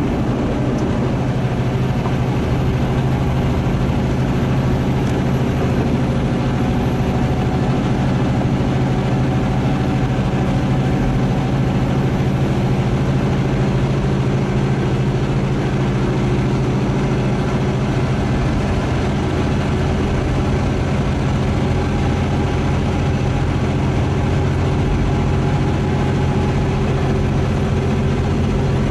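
Semi-truck's diesel engine running steadily while climbing a mountain grade, heard inside the cab as an even, low drone.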